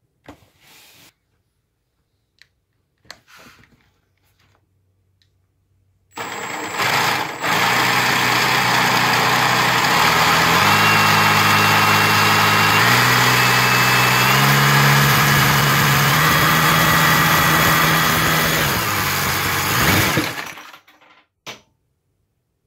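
Cordless drill spinning a LEGO model of a Toyota 4A-GE engine through its drive gear: the drill's motor whine mixed with the rattle of the model's moving parts. After two brief blips, it runs for about fourteen seconds, stepping up and down in speed a few times, then stops.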